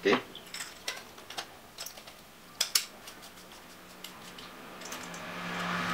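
Scattered clicks and taps of a metal tactical flashlight's parts being handled and fitted together by hand, the loudest about two and a half seconds in. Near the end a soft rasping builds as a part is twisted on.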